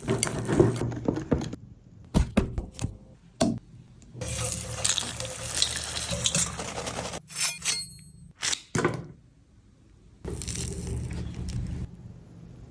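A wire whisk beats batter in a glass bowl, then battered fritters sizzle steadily for a few seconds as they deep-fry in a pan of hot oil. Sharp clicks and knocks come in between.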